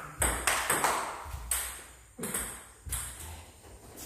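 Table tennis rally: the celluloid ball clicks sharply off the rubber paddles and the tabletop, a quick run of strikes about half a second in, then slower, evenly spaced hits. Each click leaves a short echo.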